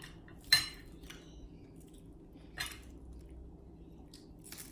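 Crispy fried dried fish (bulad) crackling as it is broken apart by hand and eaten: three short crunchy snaps, the first the loudest.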